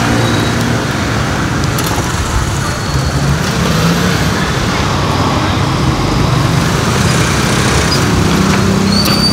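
Steady street traffic noise, motor vehicles running past, with a couple of short clicks about two seconds in and near the end.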